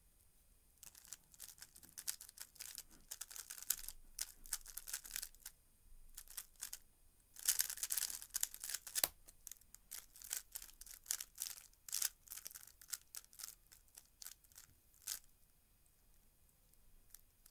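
Plastic 3x3 speed cube being turned very fast, its layers clicking and clacking in rapid bursts. The clicking is densest about halfway through and stops a couple of seconds before the end.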